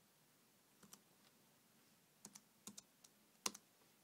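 Faint key clicks from an Apple Wireless Keyboard's number keys being pressed one after another in small groups, the loudest about three and a half seconds in: the Bluetooth pairing passkey being typed on the keyboard.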